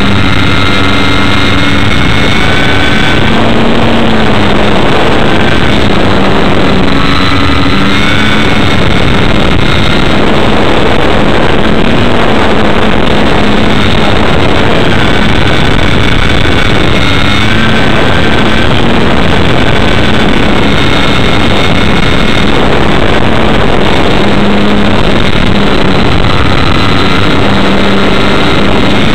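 Model airplane's motor and propeller running in flight, picked up loud by an onboard camera along with wind rush. Its high whine steps up and down in pitch every few seconds.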